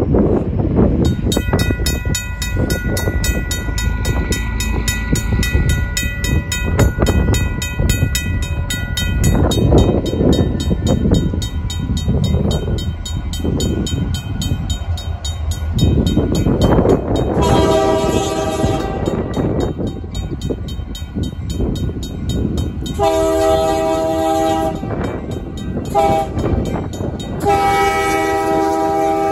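RACO mechanical crossing bell ringing rapidly from about a second in, over the low rumble of approaching Union Pacific diesel locomotives. From a little past halfway, the lead locomotive's horn sounds the grade-crossing signal: two long blasts, a short one, then a long one.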